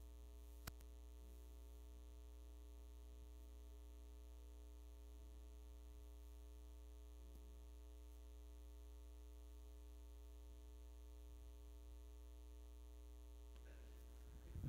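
Near silence over a steady low electrical hum, with one short click just under a second in.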